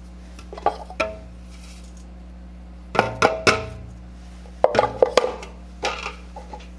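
A spatula and plastic food processor bowl knocking and scraping against a metal springform pan as crumb crust mixture is tipped and scraped out: a few sharp knocks with a brief ring, in clusters about a second in, around three seconds and around five seconds.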